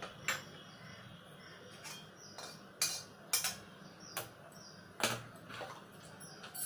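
Steel kitchen utensils clinking and knocking as they are handled and set down on the counter, about half a dozen separate strikes at irregular intervals, over a low steady hum.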